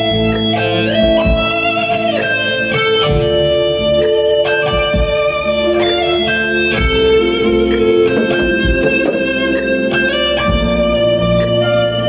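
Instrumental music: an electric guitar plays a slow melody with sliding, bent notes over a sustained keyboard backing with bass and a steady drum beat.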